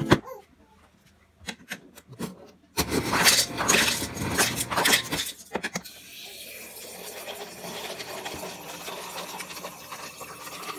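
Refrigerator door dispenser filling a cup: ice cubes clatter into it for about three seconds, then a steady stream of water runs in over the ice.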